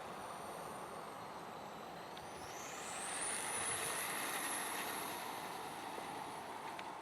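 Whine of an HPI Sprint 2 Flux RC car's 5600Kv brushless motor, rising steeply in pitch about two seconds in as the car accelerates, then holding high and slowly easing off.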